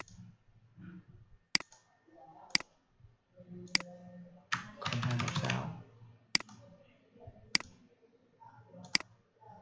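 Computer mouse clicks, seven single sharp clicks spaced about a second apart, with a short burst of rapid keyboard typing a little past the middle.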